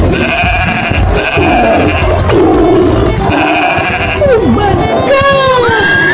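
Animal sound effects: three long bleats, then a horse whinnying, its pitch falling, near the end.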